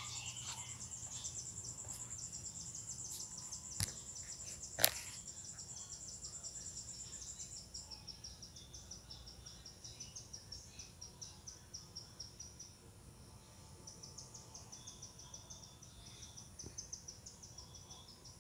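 Insects chirping: a high, fast trill that stops about eight seconds in, over a second high chirp repeating several times a second. Two sharp clicks come a few seconds in.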